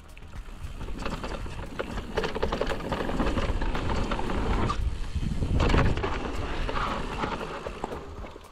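Mountain bike riding down a dirt trail: a dense rattling and clatter of the bike over the ground with a low rumble underneath, building after about a second and loudest just past the middle.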